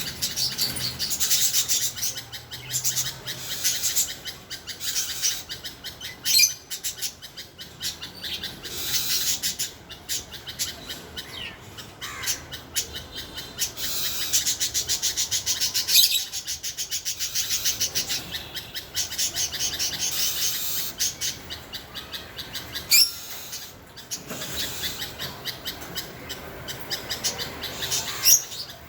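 Oriental magpie-robin and bulbul calling together: long runs of rapid repeated chirps and trills, broken now and then by a sharp, loud whistled note.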